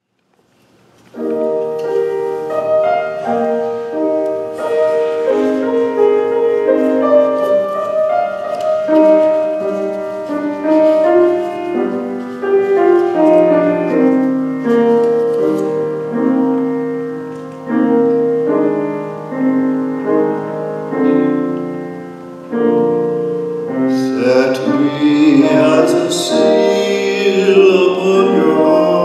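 Piano playing an introduction. Near the end a man's solo voice comes in, singing with vibrato over the piano.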